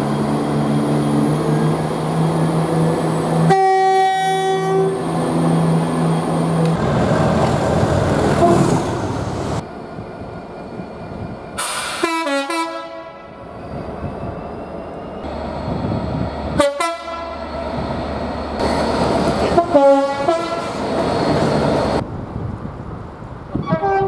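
A run of British train horns, one clip after another: a diesel multiple unit's engine running steadily, then a short two-tone horn blast about four seconds in. Several passing trains then sound their horns, the pitch dropping as each goes by, with a short blast near the end.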